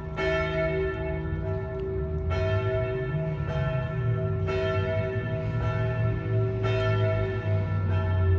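Turku Cathedral's church bells ringing, a fresh strike every one to two seconds, each strike ringing on long and overlapping the next.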